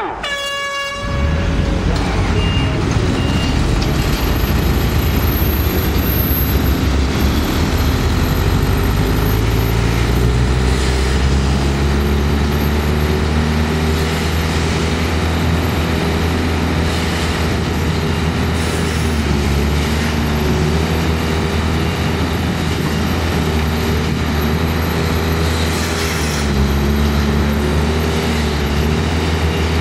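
Several machine engines start together about a second in, just after a brief pitched tone, and then run steadily with their pitches slowly shifting as the machines work.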